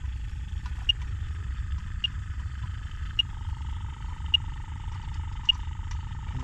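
Electronic refrigerant leak detector ticking at a slow, even rate, a short high beep a little more than once a second, over a steady hum that steps up slightly in pitch about three seconds in. The slow, unchanged beep rate means it is picking up no refrigerant at these braze joints.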